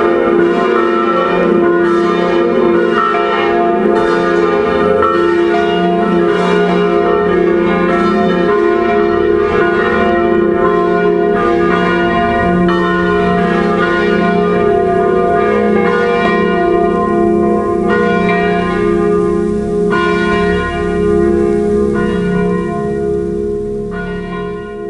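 Full peal of a five-bell church set in F3, all bells swinging together with overlapping strikes. The strikes grow sparser in the last several seconds and the level falls off near the end.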